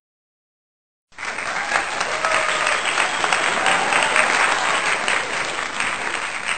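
Crowd applause: dense, steady clapping that starts abruptly about a second in after dead silence, an applause sound effect laid over the picture.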